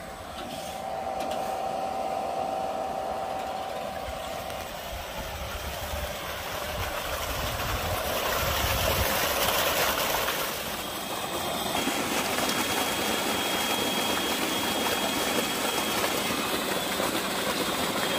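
Tube-well electric pump running, with water rushing out of the discharge pipe into a channel, a steady mechanical noise that builds louder over the first half. A thin, steady high whine joins about eleven seconds in.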